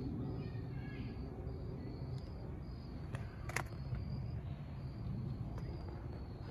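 Insects chirping in an even rhythm, about two short chirps a second, over a steady low rumble, with one sharp click about three and a half seconds in.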